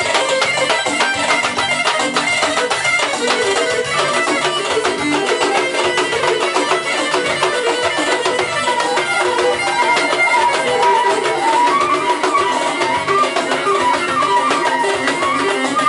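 Live band playing fast traditional dance music: drums beat a quick, steady rhythm under a melody line that runs throughout.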